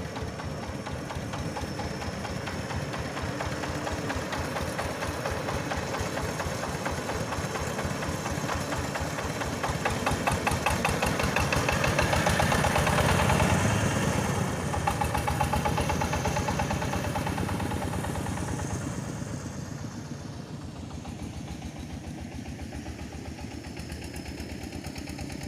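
Yanmar diesel engine of a mobile rice-mill vehicle chugging as it drives off. It grows louder to a peak about halfway through, then fades.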